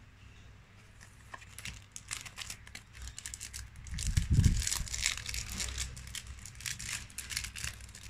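Crinkling and tearing of a trading-card booster pack wrapper as it is handled and opened, a dense irregular crackle that starts about two seconds in.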